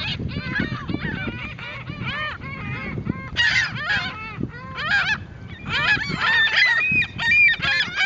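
A flock of seagulls calling, many short squawks overlapping, with louder clusters of calls about midway and again near the end.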